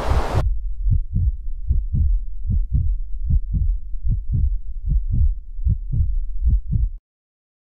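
Heartbeat, a steady lub-dub of low paired thumps at roughly 75–80 beats a minute, which stops abruptly near the end. A hiss of noise over it cuts off sharply about half a second in.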